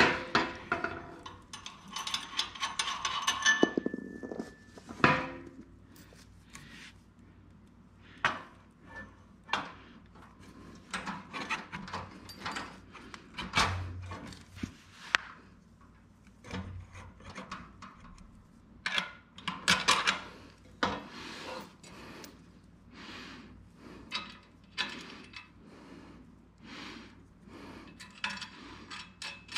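Crinkling of a plastic hardware bag being rummaged through for the first few seconds. After that comes a scattered series of light clicks and knocks as aluminium wagon brackets and small hardware are handled and fitted together.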